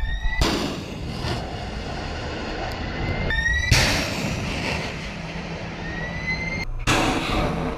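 Ship-launched surface-to-air missiles' rocket motors, a loud rushing noise. It comes in about three cut-together shots, each with a rising whistle.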